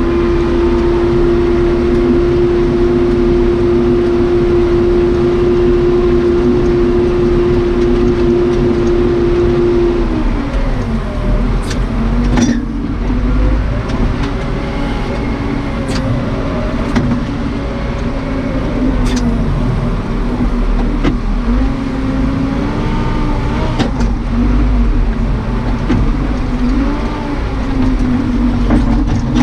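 Case 580 Super K backhoe's four-cylinder Cummins 4BT diesel running at high revs, steady for about ten seconds, then dropping in pitch and rising and falling as it works. A few sharp knocks are heard along the way.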